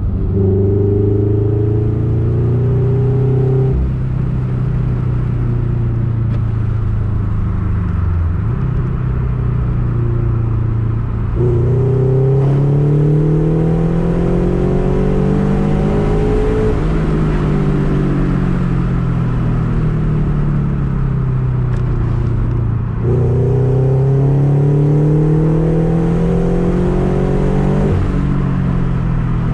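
Subaru BRZ's flat-four engine with catless headers and a cat-back exhaust, heard from inside the cabin while driving on a fresh stage 2+ tune. The note holds steady, then climbs under acceleration about eleven seconds in, falls away slowly, and climbs again with a second pull near the end.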